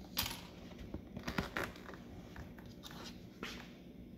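Scratchy, crinkly handling noises in a few short bursts as small plastic clips are picked up and pushed onto the rim of a biodegradable cremation urn float.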